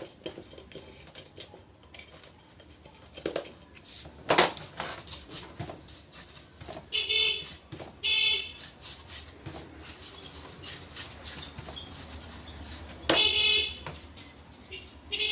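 Light metallic clicks and knocks of tools and small metal parts handled on a bench while a pressure-washer pump is taken apart, the sharpest about four seconds in. Four short honk-like pitched sounds come through louder, two close together around the middle and two near the end.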